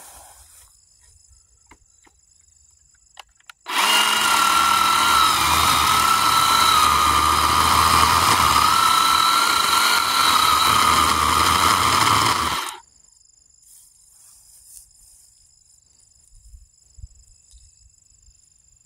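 Craftsman V20 10-inch cordless electric chainsaw cutting into a hardwood stump. It starts about four seconds in, runs at one steady pitch with a slight waver for about nine seconds, then cuts off suddenly. The wood is very hard going, like cutting through concrete.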